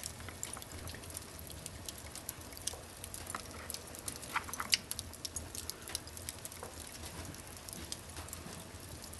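Wood fire crackling in a wood furnace firebox: irregular sharp pops and snaps over a steady low hum.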